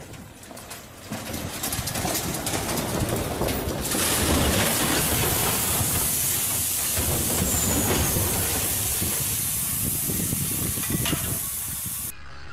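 Rockslide: boulders and rubble tumbling and crashing down a mountainside, a heavy rumble with crackling debris under a steady hiss. It cuts off abruptly near the end.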